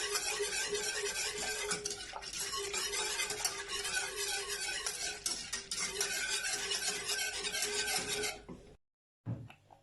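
A utensil stirring a thickening white sauce of milk, cream and cornstarch in a pan over low heat, with a steady sizzle; the sound cuts off suddenly near the end.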